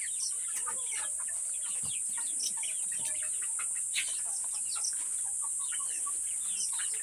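A flock of 45-day-old Black Australorp chicks peeping and clucking while feeding, many short calls overlapping. A steady high-pitched insect drone runs underneath.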